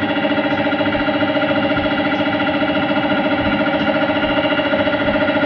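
Air compressor running steadily with a fast, even throb, supplying air for spray-painting.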